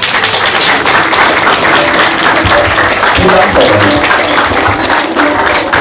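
Audience applauding, loud and dense, with faint music underneath.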